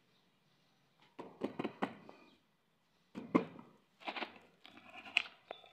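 Cardboard wafer box being handled and turned over: short spells of rustling and scraping with a few sharp taps, in three bursts.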